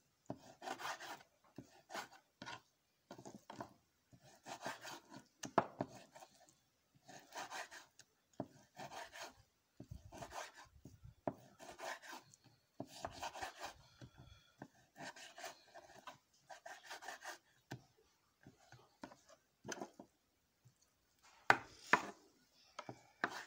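A knife cutting raw beef into small pieces: a rasping slicing stroke about once a second, with sharp knocks of the blade among them and the loudest knocks near the end.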